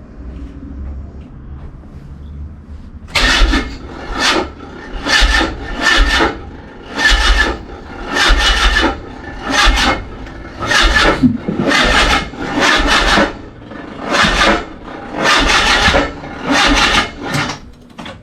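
Mazda MX-5's starter motor cranking the engine over slowly, a laboured rasping churn that rises and falls about once a second without the engine firing. The cranking is lazy, sluggish on the jump-start power.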